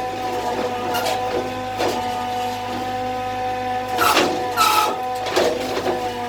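A machine running with a steady hum, broken by irregular short rasping noises.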